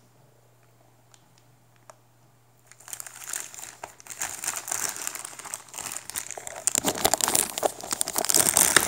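Clear plastic packaging bags crinkling as hands handle them. It starts about three seconds in and grows louder toward the end.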